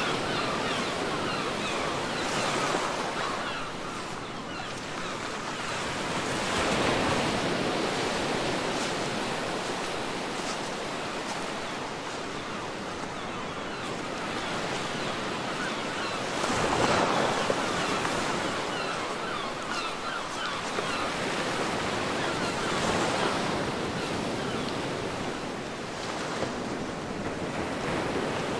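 Ocean surf on a beach: a steady wash of waves, rising and falling as each wave breaks, with louder breakers about seven seconds in, again around seventeen seconds, and near twenty-three seconds.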